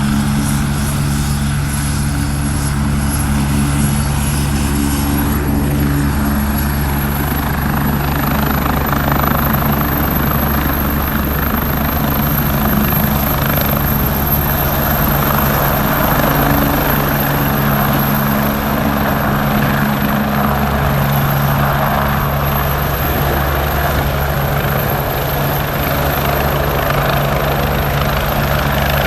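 Air ambulance helicopter running steadily close by, its rotor and engine giving a continuous low drone, with a rushing noise that grows stronger after about eight seconds.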